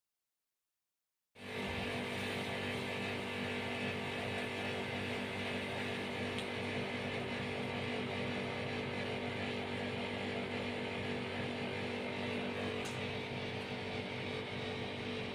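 About a second of silence, then a steady engine drone: a constant low hum over an even noise.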